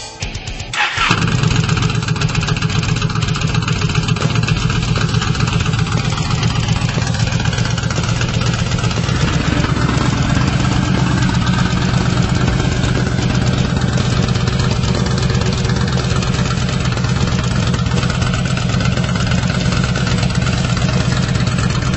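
Yamaha Midnight Star 1300 V-twin with an aftermarket Big Gun exhaust starting about a second in, then idling steadily with an even, deep pulse.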